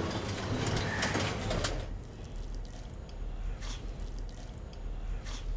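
Background noise for about two seconds, then a quiet room with a faint hum and a few scattered clicks of plates on a table as two people eat rice by hand.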